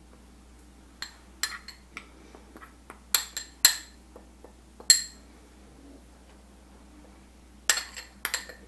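Metal spoon clinking and scraping against a small glass bowl as lime zest is scraped out of it. Sharp clinks come singly and in small clusters, stop for a couple of seconds after about five seconds in, and return as two clusters near the end.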